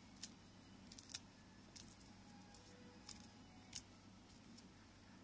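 A handful of faint, sharp little clicks, the loudest about a second in, as boiled corn kernels are pried off the cob with the thumbs and drop onto a plate.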